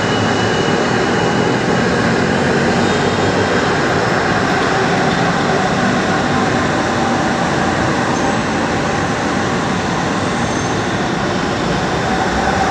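LRT Line 1 third-generation (3G) light-rail train running past close by on the elevated track, a steady loud rumble of wheels on the rails. A faint high whine fades out about three seconds in.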